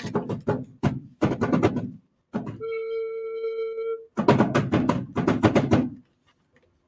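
Foley sound effects: a run of quick knocks and clicks, then a single steady ringing tone held for about a second and a half, then a denser run of rapid strokes that stops about six seconds in.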